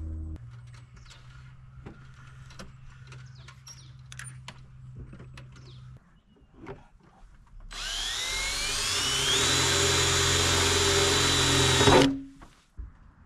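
Power drill starting up with a rising whine that levels off into a steady run for about four seconds, then stops suddenly. Before it, faint clicks and handling noises.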